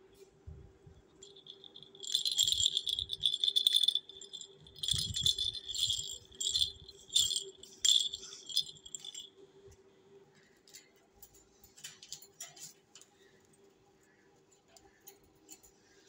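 A plastic toy rattle shaken hard for a couple of seconds, then in several short bursts, stopping after about seven seconds; faint clicks and taps follow.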